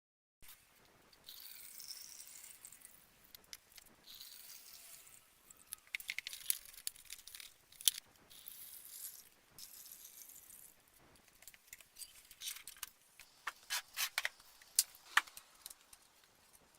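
Small metal parts clinking and rattling as they are handled, in many sharp ticks and clicks. Two stretches of high-pitched hissing come early on.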